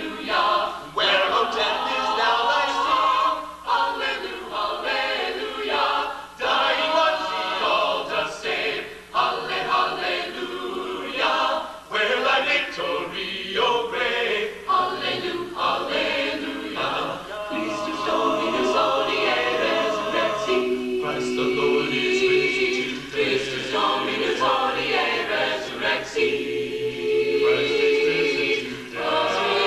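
Choir singing a cappella in several parts, with long held chords in the second half.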